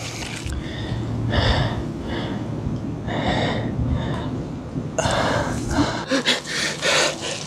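A man gasping and wheezing for breath in repeated bursts about once a second as he struggles against a grip on his collar at his throat, with strained grunts near the end. A steady low hum runs underneath.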